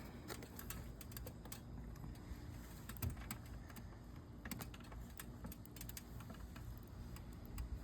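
Light, irregular clicks and ticks from asphalt shingles and fasteners being handled during a roof shingle repair, with a few slightly louder taps.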